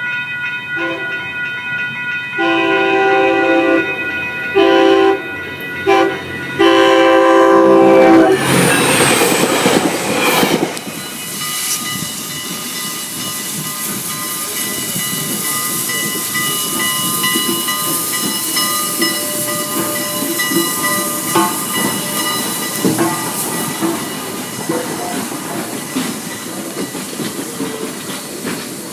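A crossing bell ringing, then a train horn sounding four blasts (long, short, short, long) and the train rushing through the crossing. After that, a steady hiss with scattered wheel clicks as a steam-hauled passenger train rolls slowly past.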